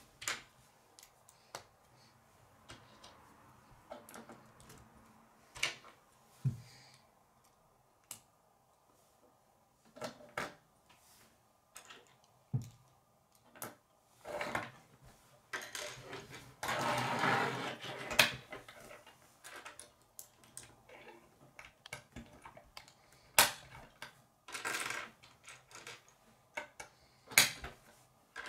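Plastic K'nex rods and connectors clicking as they are snapped together and set down on a wooden table, in scattered, irregular clicks and knocks. About halfway through there is a longer stretch of rattling plastic pieces.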